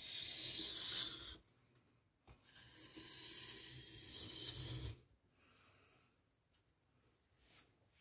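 Steel knife blade drawn across a wet 1000-grit water stone: two rasping sharpening strokes, the first about a second and a half long, the second longer, ending about five seconds in.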